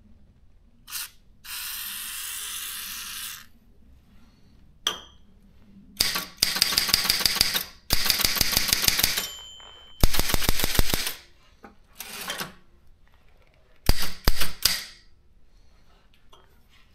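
A short hiss of aerosol WD-40 sprayed into a Daro 20 typewriter's typebar mechanism, then several runs of rapid mechanical clattering and a few single clacks as the typebars are worked to free them from sticking.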